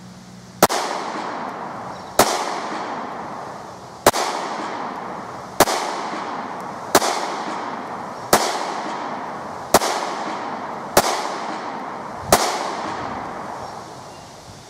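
Smith & Wesson Shield compact pistol firing nine slow, aimed shots, about one every second and a half. Each shot trails off in an echo lasting about a second.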